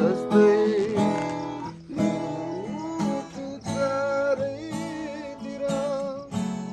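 Music: an acoustic guitar strumming, with a held, slightly wavering melody line above it.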